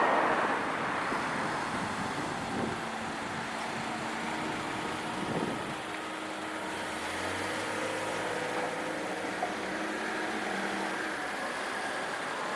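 Road traffic: vehicles passing with a steady wash of engine and tyre noise, louder in the first second and then even.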